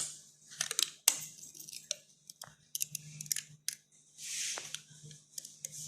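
Irregular sharp clicks and scratchy crackles as a flex (COF) cable is pried and peeled off an LCD TV panel's glass, over a faint steady low hum.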